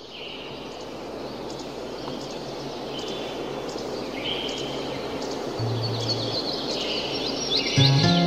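Rice-field ambience fading in: a steady wash of wind noise with birds chirping, the chirps getting busier towards the end. Plucked-string music comes in just before the end.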